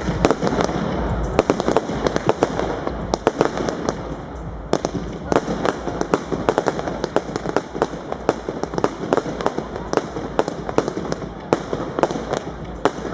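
Bon Fireworks 'Blessing Pearls' firework cake firing its shots in quick succession: a rapid, irregular string of sharp pops and small bangs, several a second, over a steady hiss.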